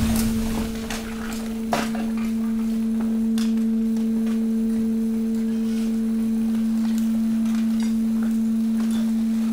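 Hydraulic waste compactor's pump running with a steady, even hum on one held tone, while the mixed waste in the chamber gives scattered faint crackles and clicks as it is pressed, one sharper click about two seconds in.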